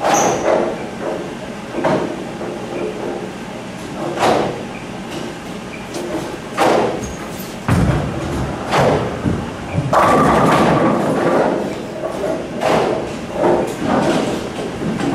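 Hammer Dark Web bowling ball landing on the wooden lane with a heavy thud about eight seconds in, then rolling down the lane. A couple of seconds later it crashes into the pins, which clatter.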